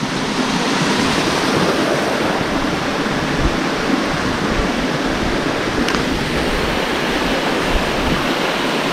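Waterfall pouring steadily: a continuous rushing of falling water.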